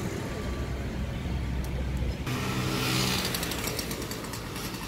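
City street traffic: a steady low road rumble, then, after an abrupt change about two seconds in, a car engine accelerating, loudest about three seconds in before easing off.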